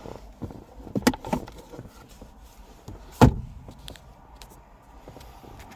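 A few clicks and knocks, then one loud thump about three seconds in, from the car's interior fittings being handled.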